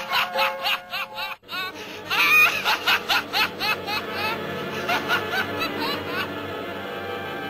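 Laughter in quick rising-and-falling pulses over soft background music: a short run, a brief break, then a longer run. The laughter stops about six seconds in and the music carries on.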